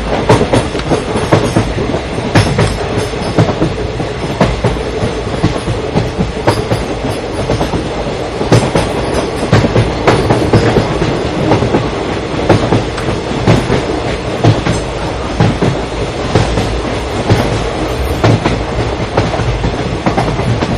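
Amaravati Express passenger train's wheels running over the track at speed: a loud, continuous rumble broken by frequent, irregular sharp clacks as the wheels strike rail joints.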